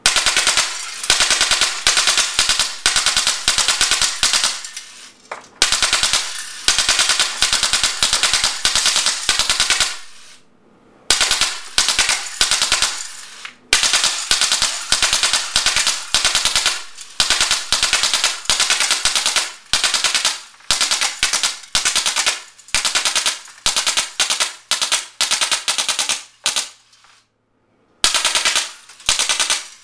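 A Drozd Blackbird .177 steel BB machine gun, powered by high-pressure air, firing long rapid full-auto bursts of several seconds each, broken by short pauses and about a second's silence near the end. It is very loud, and the steel BBs strike and tear through tin cans.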